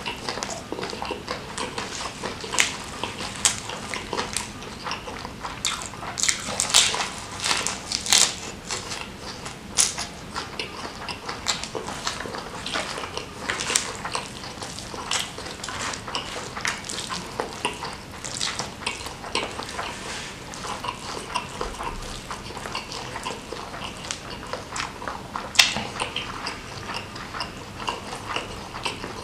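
Close-miked eating: chewing and biting food, with many short sharp crunches and clicks and the clink of cutlery on a plate.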